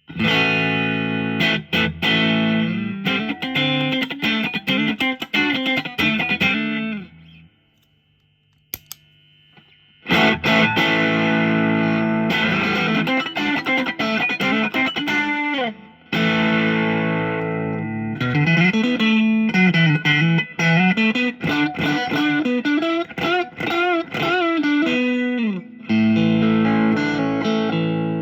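Stratocaster electric guitar played through a Sumo Stomp, a Tube Screamer-style overdrive pedal: distorted riffs and chords with several string bends. Playing stops for about two seconds near the seven-second mark, leaving a faint amp hum and a click, then resumes.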